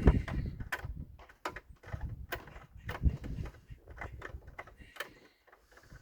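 Irregular clicks and knocks as a screw is driven by hand into the charger's white front cover, with the screwdriver and cover being handled.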